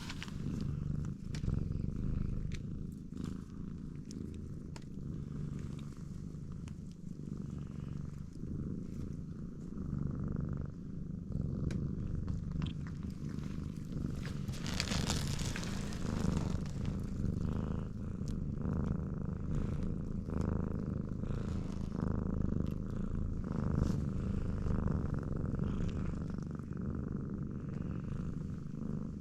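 Domestic cat purring close up: a steady, pulsing low purr, with a brief hiss-like noise about halfway through.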